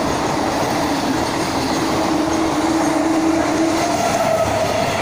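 Indian Railways passenger coaches running past the platform at speed: a steady loud rumble and clatter of wheels on the rails, with a faint steady whine through it.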